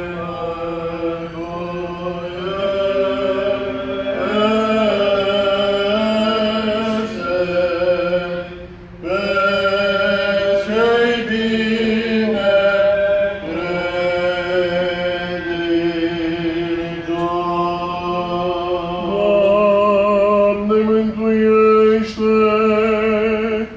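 Eastern Orthodox liturgical chant sung by voices. Long, slowly moving melodic lines are held over a steady low drone note, with a short break about nine seconds in.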